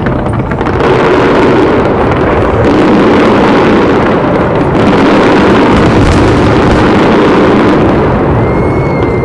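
Fireworks finale: many shells and crackling bursts going off at once in a dense, loud, continuous barrage that eases slightly near the end.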